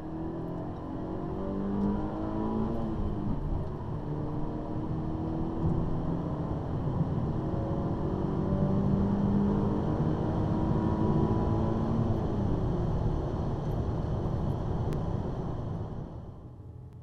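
Holden VF SV6's 3.6-litre V6 under hard acceleration, heard from inside the cabin: the engine note climbs in pitch, drops back at each gear change and climbs again. About three-quarters of the way through the pitch falls away, and the sound drops off sharply near the end.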